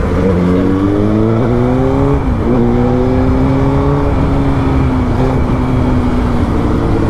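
Suzuki GSX-R1000's inline-four engine pulling through the gears. The revs climb, drop at two upshifts about one and a half and two and a half seconds in, then hold nearly steady.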